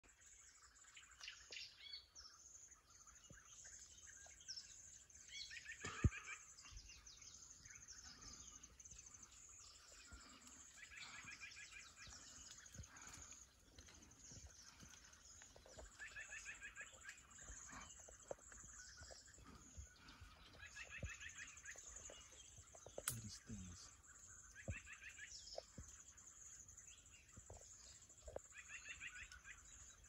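Faint natural ambience: a bird repeats a short trilled phrase about every five seconds over a steady high-pitched drone. A sharp knock sounds about six seconds in and another around twenty-three seconds.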